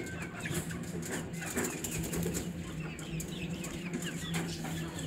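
Aseel chickens and chicks clucking and peeping, with many short high peeps scattered throughout and light clicks of beaks pecking feed from a steel bowl, over a steady low hum.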